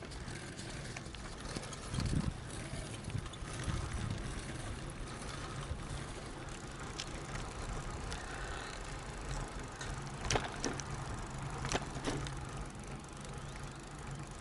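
Soviet KhVZ Start Shosse road bicycle riding on asphalt: steady tyre and rolling noise picked up by a camera mounted on the bike. A few sharp knocks come from about ten seconds in.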